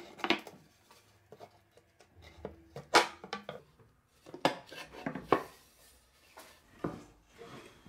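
Irregular knocks and clinks as the wooden tabletop and metal fittings of an antique pedal-powered scroll saw are handled and set in place on its cast iron frame. The sharpest knock comes about three seconds in.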